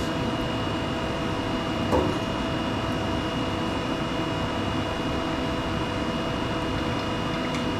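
Steady mechanical hum of a photolithography exposure machine and lab ventilation, with a few constant whining tones, as the exposed sample is ejected. A single light knock comes about two seconds in.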